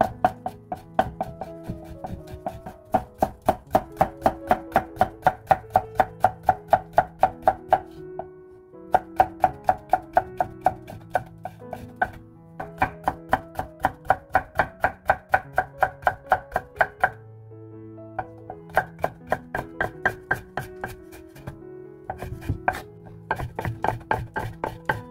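Chef's knife chopping carrot slices into matchsticks on a wooden cutting board: quick, even strokes about four a second, in runs with short pauses. Background music plays underneath.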